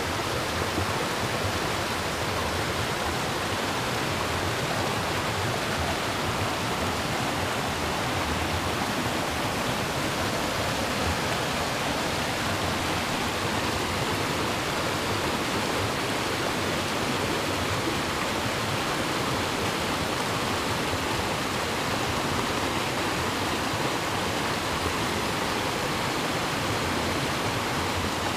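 Shallow, rocky mountain creek rushing and splashing over boulders in small cascades: a steady, even rush of water.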